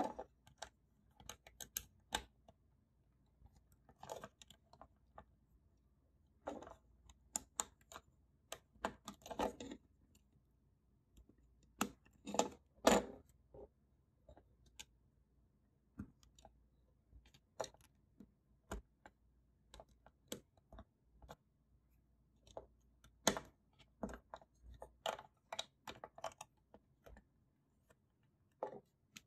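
Plastic Lego bricks clicking and clattering as they are handled and pressed together, in irregular single clicks and short clusters, the loudest cluster about halfway through.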